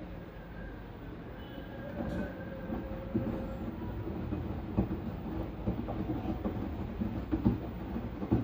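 LG washing machine running its wash cycle: the drum turning with a low rumble and irregular knocks and thumps from the tumbling load, growing louder about two seconds in.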